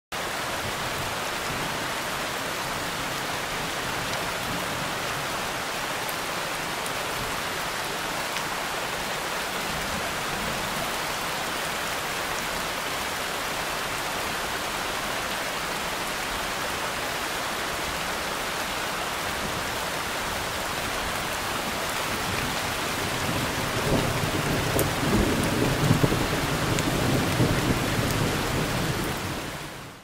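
River rapids rushing steadily over rocks. About three-quarters through, a deeper rumble joins in and the sound grows louder and more uneven, then it fades out at the end.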